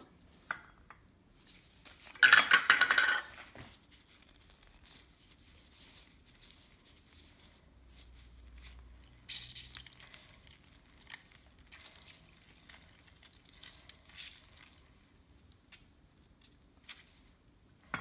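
Hands working at a plastic food-processor bowl: a burst of clattering and rustling about two seconds in, lasting over a second, as ingredients go into the bowl. After it come scattered faint taps and rustles.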